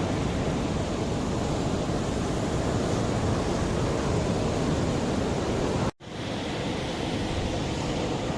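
Mediterranean sea waves washing on the shore, a steady rush of surf. It cuts out for an instant about six seconds in, then resumes slightly quieter.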